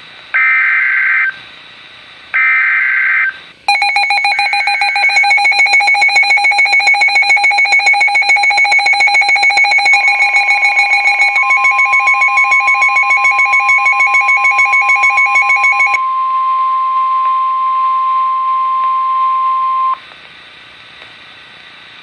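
NOAA Weather Radio emergency alert: three one-second bursts of SAME digital header data screech, the last overlapped by the weather radio receivers' own rapidly pulsing electronic alarm. The alarm sounds for about twelve seconds. Under it, the steady single 1050 Hz warning alarm tone sets in about ten seconds in and cuts off sharply near the end.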